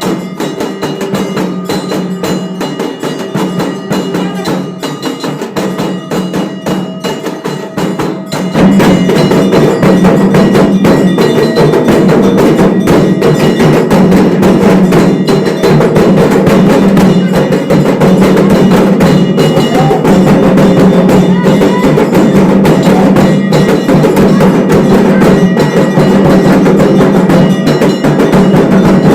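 Temple bells and percussion struck rapidly and continuously over a steady ringing tone; it becomes much louder about eight seconds in.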